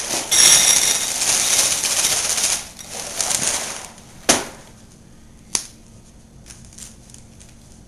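Life cereal pouring from its box into a bowl: a dense rattle of pieces for about two and a half seconds, then a shorter pour. Two sharp knocks follow, about four and five and a half seconds in, then faint ticks.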